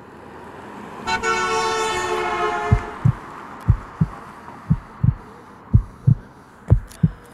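A car horn sounds for about two seconds, then a heartbeat sound effect thumps in lub-dub pairs, about one beat a second.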